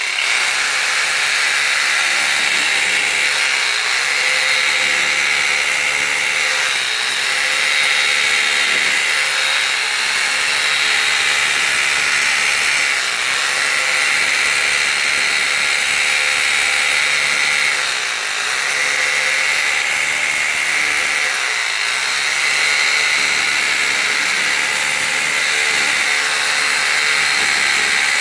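Arbortech AS170 electric brick and mortar saw running continuously, its reciprocating blades cutting mortar out of brick joints. It makes a steady, high-pitched buzz that dips briefly now and then.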